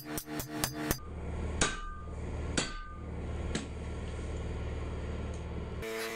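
A hand hammer striking a red-hot steel file on an anvil. A quick run of blows plays under background music for the first second. Then the music drops out and four slower blows, about a second apart, ring out over a low steady rumble, and the music comes back near the end.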